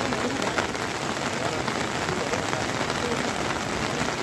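Rain falling in a steady, even hiss.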